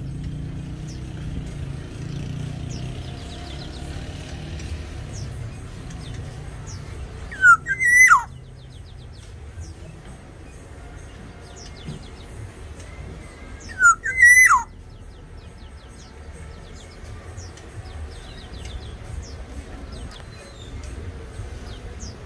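Black-naped oriole (Sumbawa form) giving two loud, brief slurred whistles, each rising then dropping, about a third of the way in and again about two-thirds through. Faint high chirps and a low steady background run between the calls.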